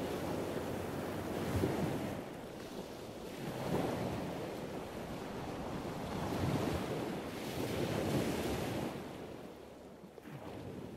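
Small waves washing against a shore, with wind blowing over the microphone, swelling and easing every couple of seconds and fading out near the end.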